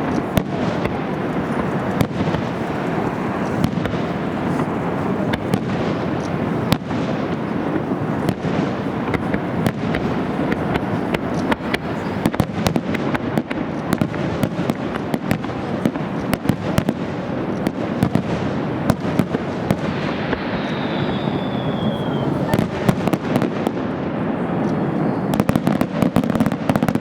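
Finale fireworks barrage: a continuous, dense run of aerial shell bursts and crackling, with sharp bangs coming thick and fast, densest near the end. A short falling whistle cuts through about twenty seconds in.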